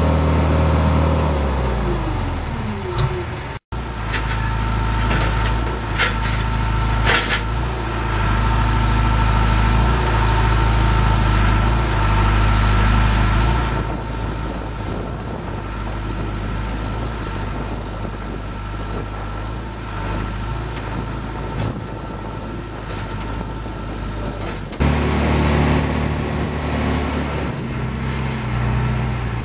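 John Deere 210LE skip loader tractor's diesel engine running, its pitch falling as it throttles down in the first few seconds, then running steadily under throttle with a faint steady whine alongside. The sound breaks off abruptly twice, about three and a half seconds in and again near the end.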